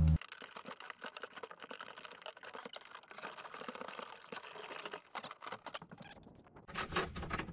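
Solar cables being fed down through the roof into the camper: light, irregular rustling and clicking as they slide and rub, with a few louder knocks near the end.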